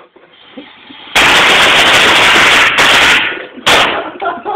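A string of firecrackers going off about a second in, a dense volley of rapid bangs lasting about two seconds, then one last short burst. It is loud enough to overload the microphone.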